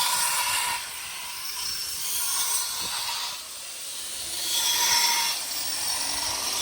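Metal-cutting work in a workshop: a hissing noise that swells and fades three times, with a faint high whine in the first and last surges.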